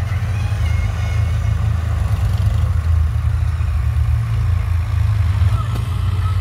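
Powertrac Euro 55 tractor's diesel engine running steadily as the tractor drives over loose sand mounds, a deep continuous engine drone.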